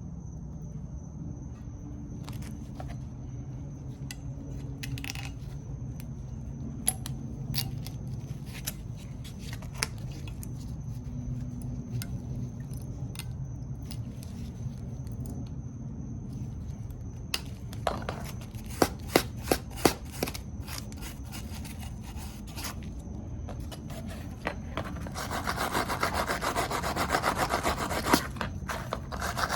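Hand tools clicking and knocking against rear brake parts, with a quick run of sharp clicks past the middle, then a fast, rasping scrape of metal being rubbed near the end.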